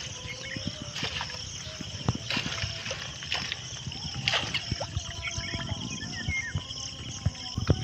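Water splashing and dripping as a collapsible cylindrical mesh fish trap (duari net) is hauled out of a river, with irregular small splashes throughout.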